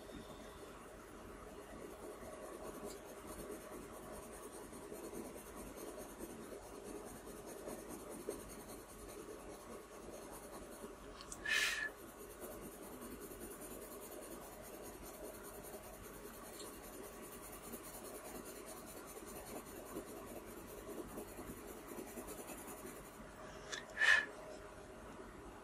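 Dark indigo coloured pencil shading lightly on drawing paper: a soft, steady scratching of pencil strokes. Twice, about halfway through and again near the end, a brief, sharper sound stands out above the strokes.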